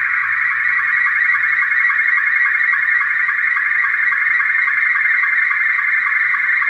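Slow-scan television (SSTV) picture signal coming from a shortwave web receiver. It is a steady, warbling stream of rapidly shifting tones with short regular sync pips at its low edge, the sound of an image being sent line by line.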